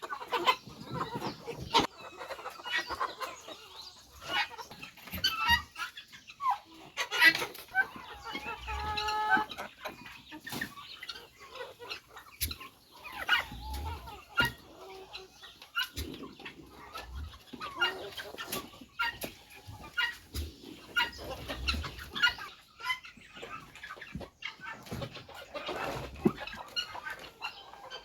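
Chickens clucking and calling, with scattered taps and knocks among them.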